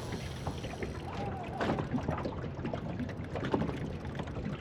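Water lapping and splashing against the side of a small fishing boat, with scattered small knocks and clicks.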